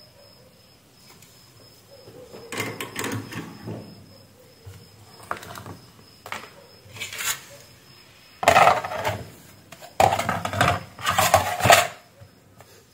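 Clattering, scraping and rustling as parts are handled on a workbench: an LED light panel laid into a round plastic ceiling-light housing and its driver board and wires moved about. The noise comes in several bursts, the loudest about eight and a half seconds in and again between ten and twelve seconds.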